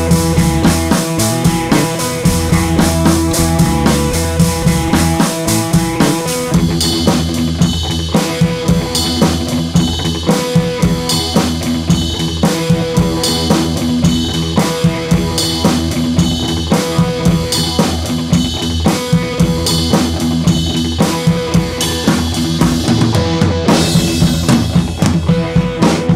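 Background music: a drum-kit-led track with a steady beat over sustained pitched parts, filling out about six seconds in.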